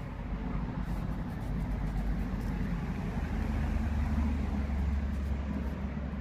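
Wind buffeting the microphone outdoors: a low, rushing rumble that swells a little in the middle and then eases.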